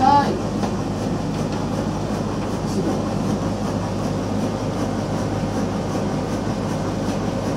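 Steam machinery of the steamboat SS St. Georg running steadily underway, a continuous mechanical drone.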